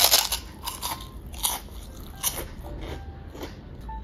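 A person biting into a crispy fried chip with a loud crunch, then chewing it with a run of smaller crunches a little under a second apart.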